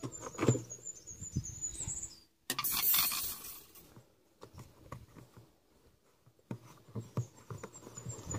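Fingers handling and pulling at a washing machine's rubber door seal: scattered light taps, rubbing and scraping, with a louder rustle about two and a half seconds in. A thin high chirping comes and goes in the background.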